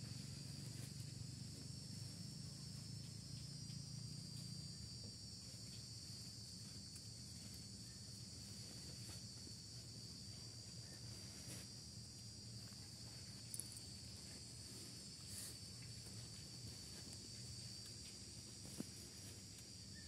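Faint, steady, high-pitched insect chorus, with a few small clicks in the second half.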